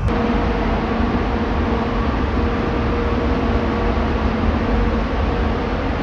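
Paint spray booth's ventilation running: a steady rush of moving air with a low fan hum, which starts suddenly at the cut into the booth.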